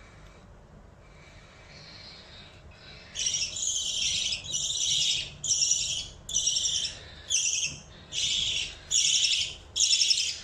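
Budgerigar chick giving a rapid series of harsh, raspy calls, a little over one a second, starting about three seconds in, as a budgie chick does when begging to be fed.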